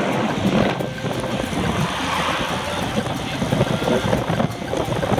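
Wind rumbling and buffeting on the microphone of an action camera riding on a moving road bike, a loud, uneven rush.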